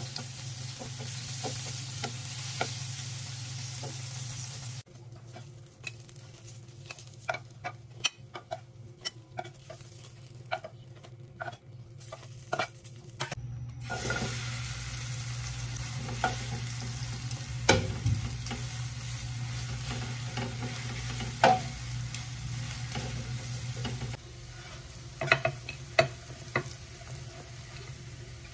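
Food frying in oil in a pan, sizzling, with metal tongs and a spoon clicking and scraping against the pan. The sizzle drops away about five seconds in, leaving a quieter run of sharp taps, comes back about halfway through, and drops away again near the end under a few more taps.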